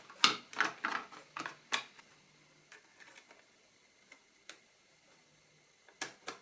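Irregular plastic clicks and ticks from a small wind-up radio's hand-crank generator and its gears being turned and handled: a cluster of clicks in the first two seconds, a few faint ones after, and two sharp clicks near the end.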